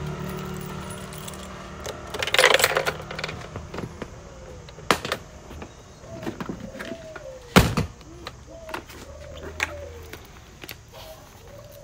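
Handling noise from a scooter and its helmet: a rattling clatter about two seconds in and a sharp thump about halfway through, with lighter knocks and clicks between. A bird calls over and over in short arching notes through the second half.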